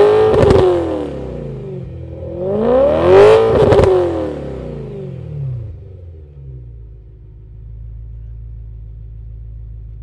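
BMW E9X M3's 4.0-litre S65 V8 through an Active Autowerke Signature exhaust, revved from idle: one rev peaks just at the start and falls away, a second rises and peaks about three to four seconds in, with crackle at the top of each. It then settles into a steady, burbling idle.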